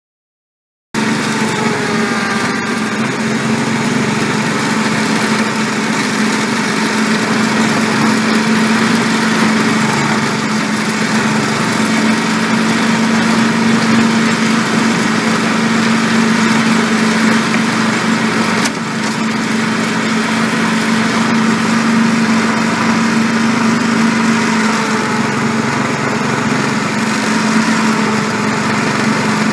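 A 7¼-inch gauge miniature locomotive's small engine runs steadily under way while hauling a works train. The sound starts about a second in with a steady hum and one sharp click about halfway through.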